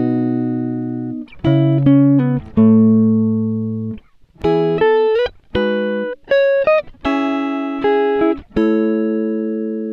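Background music: a guitar playing a slow run of chords, each one struck and left to ring out.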